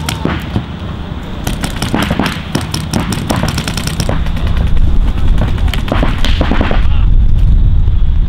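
Paintball markers firing: quick strings of sharp pops, fastest in the first half, then scattered single shots. A loud low rumble builds underneath in the second half.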